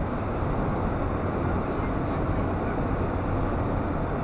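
Steady engine drone and tyre noise of a moving van, heard from inside the passenger cabin.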